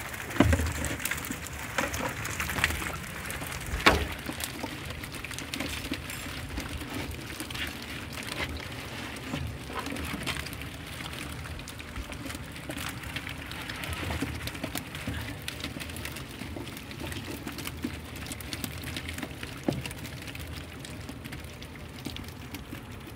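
Water running and dripping from a keepnet full of roach as it is lifted out of the river and the fish are tipped out, a steady pattering throughout. A few sharp knocks, the net and fish against the boat, come in the first four seconds.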